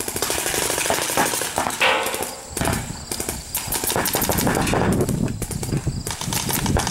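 Paintball markers firing in rapid strings, many sharp pops a second.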